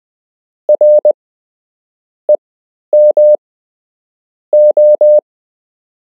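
Morse code sent on a key as a single steady tone, keyed in short dits and long dahs: a dit-dah-dit, a single dit, two dahs, then three dahs, each letter separated by a gap.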